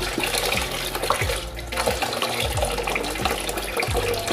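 Tap water running and splashing as a face is rinsed of foaming cleanser.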